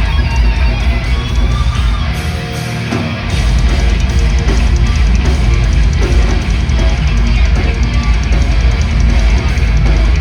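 Heavy metal band playing live: distorted electric guitars, bass and drum kit. About two seconds in, the bass and drums drop out for about a second, leaving the guitar alone, before the full band comes back in.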